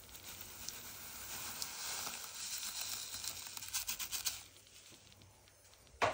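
Brown sugar being poured into a pan of hot oil: a rustling hiss with light crackling that stops about four and a half seconds in. A short sharp knock near the end.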